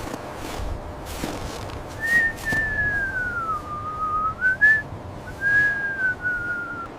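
A single high whistling tone starts about two seconds in, sliding down and then back up, with a brief break, over a steady noisy background with scattered crackles.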